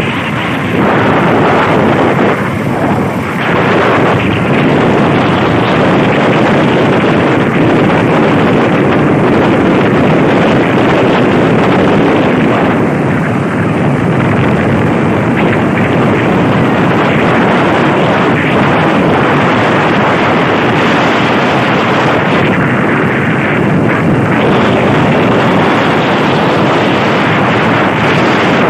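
Loud, steady wind rushing over a phone's microphone while riding on a moving motorcycle, with a slight dip in level a few seconds in.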